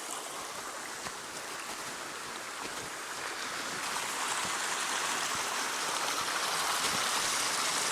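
Stream water cascading over rocks between pools, a steady rushing and splashing that grows a little louder over the last few seconds.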